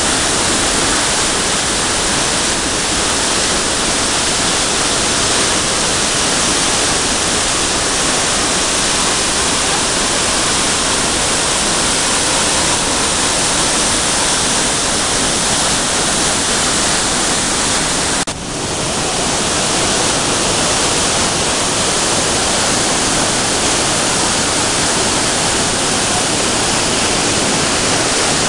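Loud, steady rush of water from waterfalls and a mountain torrent pouring through a narrow rock gorge: a dense hiss with no let-up, dipping briefly once about two-thirds of the way in.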